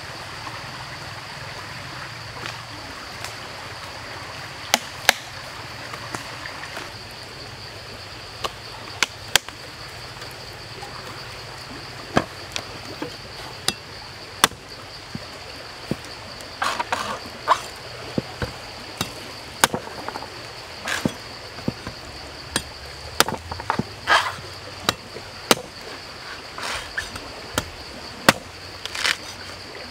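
A heavy cleaver hacking into the husk of a green coconut to cut its top open, a series of sharp, irregular strikes that come thicker in the second half. A steady high-pitched drone runs behind them.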